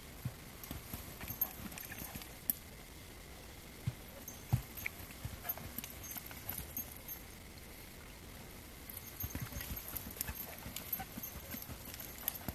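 A ridden horse's hooves thudding and scuffing in deep arena sand as it works a mechanical flag, in uneven runs of quick steps with a lull a little past the middle.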